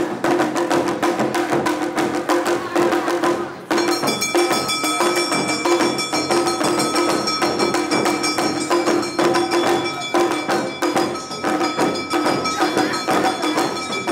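Live Awa Odori festival music: drums and a brass kane hand gong struck in a fast, steady rhythm over a sustained melodic note, with a brief dip just under four seconds in.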